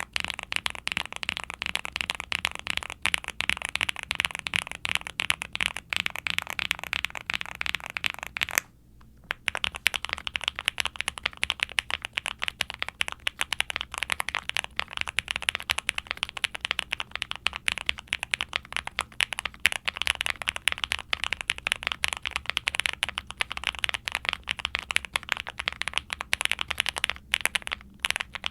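Fast, steady typing on a QwertyKeys QK65 aluminium custom mechanical keyboard with a POM plate, lubed Gateron Baby Kangaroo tactile switches refitted with nylon top housings, and GMK double-shot ABS keycaps: a dense run of deep, creamy key clacks. Typing pauses for under a second about a third of the way through, then carries on.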